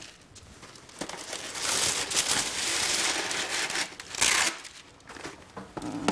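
Wax paper crinkling and rustling as sheets are pulled off the roll, with one short, sharp tear about four seconds in as a sheet is ripped off.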